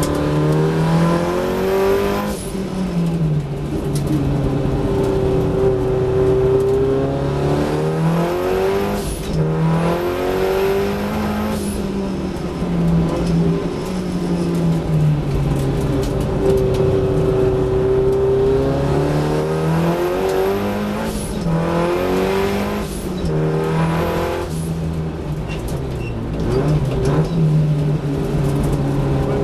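A Datsun 1600 race car's four-cylinder engine at racing load, heard from inside the cabin. The revs climb and fall several times as the car accelerates down the straights and lifts off for the corners.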